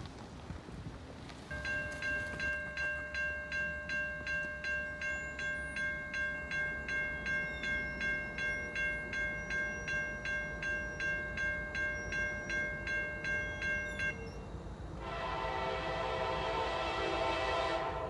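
Railroad grade-crossing bell ringing steadily at about two strikes a second, stopping about fourteen seconds in. About a second later a locomotive air horn sounds one long chord that is still going at the end.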